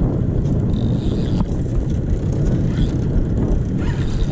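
Steady low rumble of a small fishing boat's outboard motor running, mixed with wind noise.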